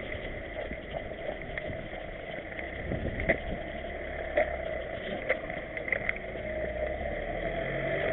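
Steady rustling and rubbing from an action camera strapped to a walking dog's back, with light clicks and knocks scattered through it as the dog moves.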